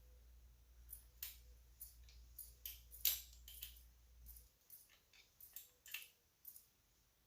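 Faint, scattered clicks and taps of small metal parts and hand tools being handled during carburetor assembly, the loudest about three seconds in, over a low hum that stops a little past halfway.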